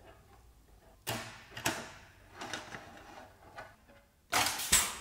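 Sheet-metal damper frame parts scraping and knocking as the frame is closed. Then a clinching tool on an air hose fires once on a frame corner, a short loud burst that is the loudest sound.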